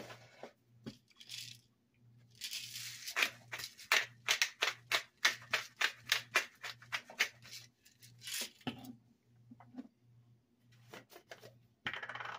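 Disposable black peppercorn grinder being twisted by hand, a rapid, regular run of grinding clicks at about four a second for several seconds. A short rustling scrape near the end as a spice bottle is picked up and opened.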